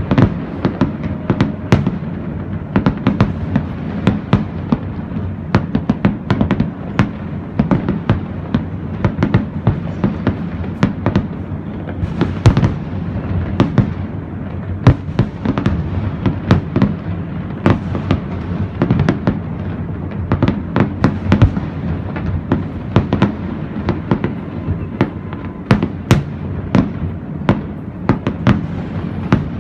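Fireworks display going off in a continuous barrage: sharp bangs and pops several times a second over a steady low rumble of overlapping explosions.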